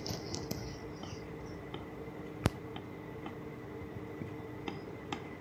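Faint handling sounds of a hand rolling a filled potato ball in a plate of flour, with one sharp click about two and a half seconds in, over a steady low hum.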